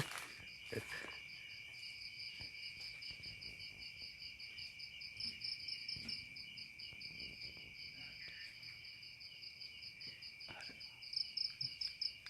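Crickets chirping in a steady, rapidly pulsing chorus at two high pitches, louder for a moment near the end.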